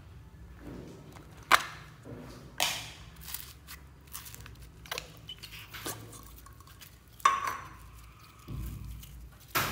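Slime with foam beads being poked and squeezed by hand: wet squishing broken by a handful of sharp pops and clicks, the loudest about a second and a half in and another near seven seconds.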